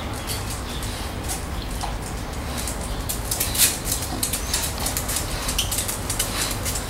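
Staffordshire Bull Terrier puppies' claws clicking irregularly on a tiled floor, with one louder click about three and a half seconds in, over a low steady hum.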